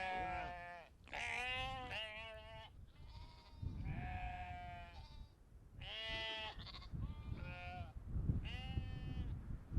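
Sheep bleating repeatedly, about six wavering calls one after another, some of them overlapping at different pitches.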